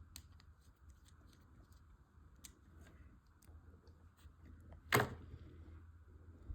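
Faint scattered clicks and ticks of a small screwdriver and plastic model parts being handled while tiny screws are tightened, with one sharper click about five seconds in.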